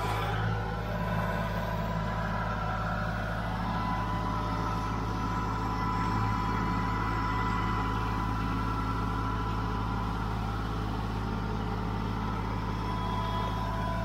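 Kubota L3901 compact tractor's three-cylinder diesel engine running steadily while the loader grapple is worked, with a thin steady high whine joining about three and a half seconds in.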